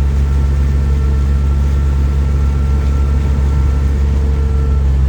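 An engine running steadily at a constant speed, a low even drone with no change in pitch.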